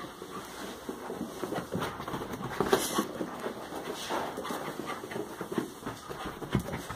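Excited small dog panting and scrambling about, with scattered knocks and rustles.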